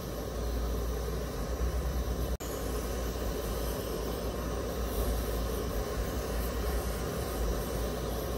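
Steady roar and hiss of gas flames: a handheld butane torch and a gas ring burner heating a small copper piece until it glows orange. The sound breaks off for an instant about two seconds in.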